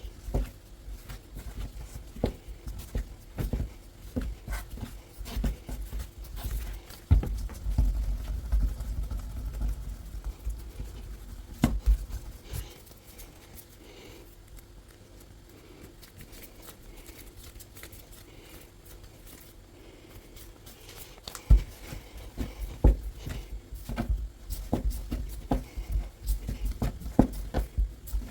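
Hands kneading a stiff semolina-and-water pasta dough on a work surface: irregular soft thumps and pats, with a quieter stretch of several seconds in the middle.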